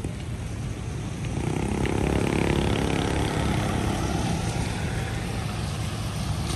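A Nissan Navara pickup truck drives past on a wet road, its engine and tyres growing louder to a peak about two to three seconds in, then fading, over a steady low rumble of traffic.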